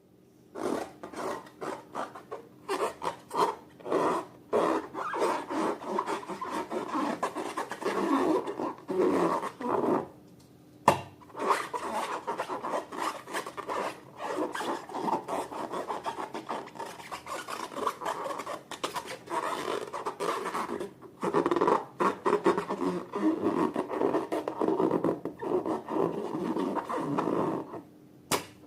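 Hands squishing and stretching slime: a rapid run of crackly, rubbing strokes, pausing twice, with one sharp click in the middle.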